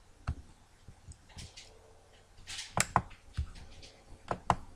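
Scattered sharp clicks of a computer mouse and keyboard keys, about six in all at an irregular pace, the loudest a little past halfway, with a short rush of noise just before it.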